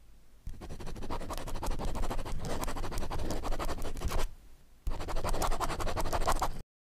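Marker pen scratching as it writes: a run of about four seconds, a short break, then a second run of about two seconds that cuts off sharply near the end.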